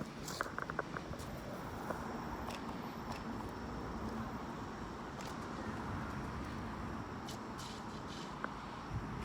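Steady outdoor background noise, with a few faint clicks and taps scattered through it.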